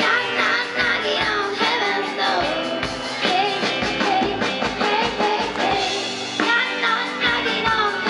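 A rock band playing live, with singing over electric guitar and a drum kit keeping a steady beat.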